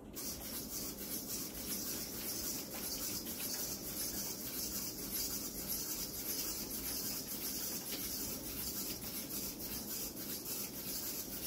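Maicat robot cat walking across carpet: its leg servos whirring and its plastic feet scuffing the pile in quick, even strides, heard as a steady hiss with a regular pulse.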